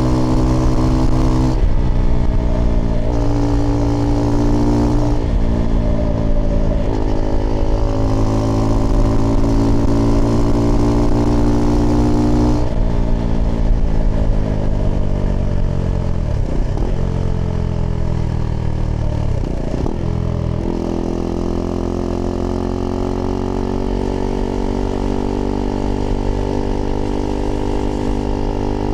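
Single-cylinder engine of a Husqvarna Svartpilen 401 through an aftermarket IxRace Mk.2 exhaust with a modified dB killer, riding under power with the pitch stepping at a few gear changes early on. From about the middle the revs fall away, dipping sharply twice as it slows, then run at a lower steady speed to the end.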